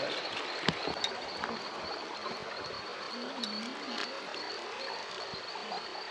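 River water running, with a steady high-pitched trill held over it and a few sharp clicks in the first seconds.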